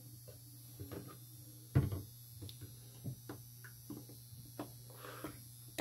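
Steady low electrical buzz from the room's lights, with scattered light knocks and clicks of handling and one louder knock about two seconds in.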